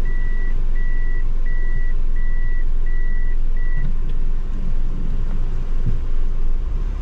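A vehicle's electronic warning beeper sounding six evenly spaced beeps, about one and a half a second, then stopping about four seconds in, over the steady rumble of the vehicle's engine and road noise.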